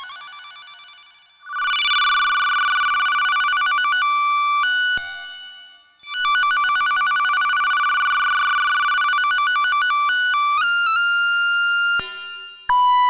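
Yamaha YMF825 FM synthesizer chip playing sustained, bright tones rich in overtones that swell in, hold, and fade out twice, then step through a few changing pitches before a new steady tone starts near the end.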